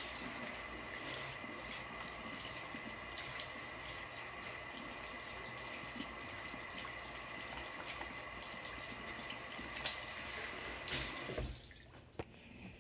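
Water running steadily from a tap, with a faint whistle in the flow, shut off abruptly about eleven seconds in.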